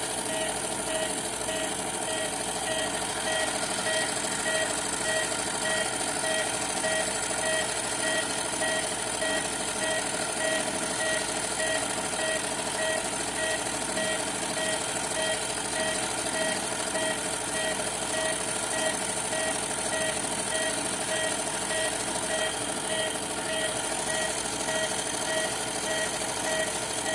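Carrinho 100 Power washing machine running its spin cycle with a strange noise: a high-pitched beep-like squeal pulsing about twice a second over the steady hum of the motor and drum.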